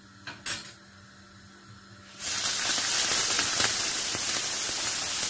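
Sliced frozen leek hitting hot olive oil in a frying pan: after a light knock about half a second in, a loud sizzle starts suddenly about two seconds in and keeps going steadily. The leek's meltwater in the oil makes it sizzle and steam hard.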